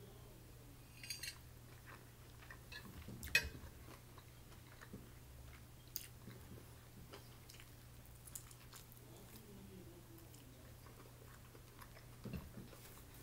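Close-up chewing of chicken, with scattered sharp clicks of a metal fork against a plate. The loudest clink comes about three seconds in.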